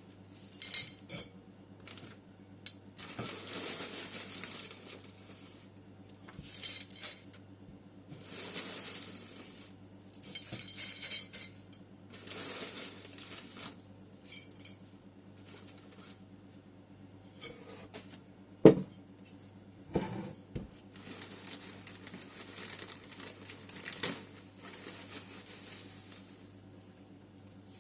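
Planting in a ceramic pot: repeated rustling, scraping bursts of soil being handled, broken by sharp clinks against the ceramic, the loudest about two-thirds of the way through.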